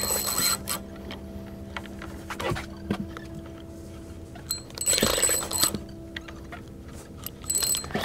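Spinning reel being cranked against a hooked fish, giving three short, high-pitched mechanical whirs, over a steady low hum.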